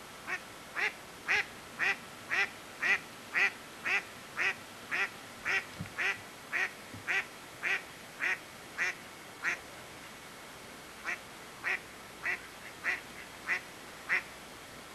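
A duck quacking over and over in a steady run of about eighteen short calls, roughly two a second, then after a brief pause six more.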